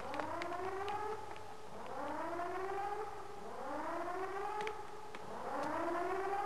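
Whooping alarm siren: a rising tone that levels off, sounding again about every second and a half, about five times. It is the ship's general-quarters alarm calling the crew to their stations for launch.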